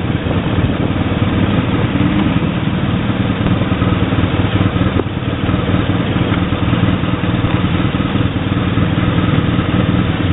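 Motorcycle engine running steadily at low revs, close to an onboard camera mounted on the bike as it rolls slowly.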